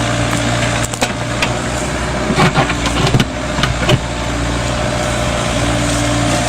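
Mini Kubota excavator's diesel engine running steadily, with a few sharp knocks and clatter between about one and four seconds in.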